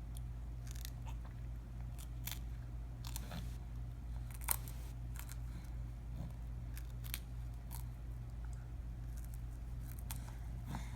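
A young child chewing a crunchy snack: irregular sharp crunches, one louder about four and a half seconds in, over a steady low hum.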